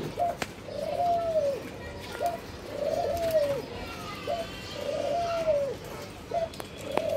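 A caged dove cooing over and over. Each coo is a short note followed by a longer note that rises and then falls, and the pair repeats about every two seconds, four times.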